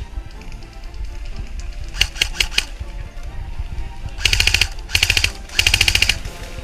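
Airsoft MP5 firing: a few single shots about two seconds in, then three short full-auto bursts of rapid clicking shots, the loudest sounds here. Background music runs underneath.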